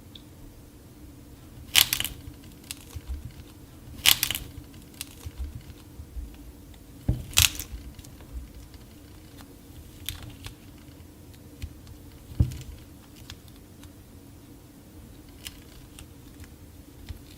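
Hardened clay cracking and crumbling: a sharp crack every two to three seconds, with smaller crunchy crackles between.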